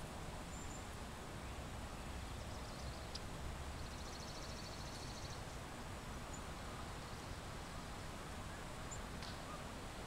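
Outdoor spring ambience: a steady hiss with a faint low rumble, and a few faint high bird chirps, with a short rapid trill about four seconds in.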